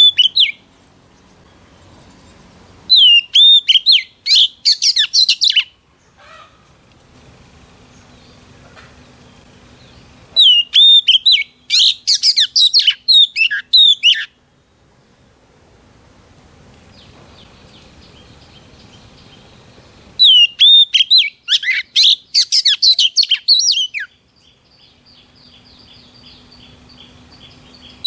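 Female oriental magpie-robin singing: three loud bouts, each opening with a slurred whistle and running into quick varied notes, with soft twittering between them. This is the female's song used to provoke male magpie-robins.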